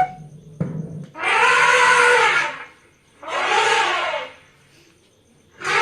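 Recorded elephant trumpeting played back: three loud trumpet blasts, each about a second long, after a couple of clicks as playback starts.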